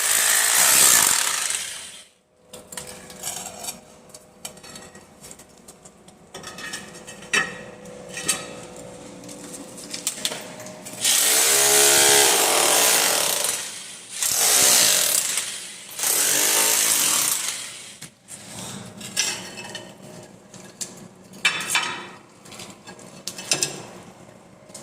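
Hammer drill running in several loud bursts: one at the start, then a longer run from about the middle that stops and restarts twice. Quieter rattling and clicks fill the gaps between runs.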